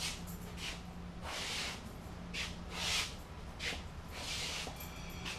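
Irregular short scraping and shuffling noises as a vending machine is manoeuvred onto a hand truck, a rush of noise every half second to a second, over a steady low hum.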